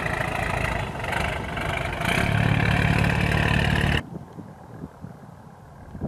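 Tour boat's engine running with a steady low throb. About four seconds in the sound cuts off abruptly to a much quieter background.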